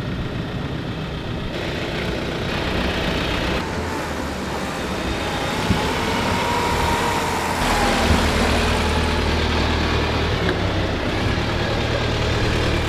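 Street traffic: a car engine running with road noise. The sound changes abruptly a few times, and the low rumble grows heavier in the second half.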